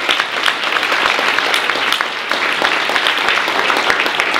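Audience applauding: many hands clapping in a dense, steady applause.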